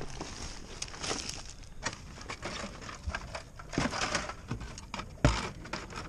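Hands rummaging through a cardboard box of items wrapped in plastic bags: plastic rustling and crinkling with small knocks of objects being moved, and one louder thump about five seconds in.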